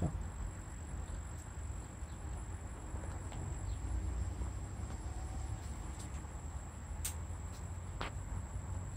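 Quiet outdoor background: a steady low rumble with a thin, steady high-pitched whine over it, and a couple of faint clicks near the end. The slow paint pour itself makes no distinct sound.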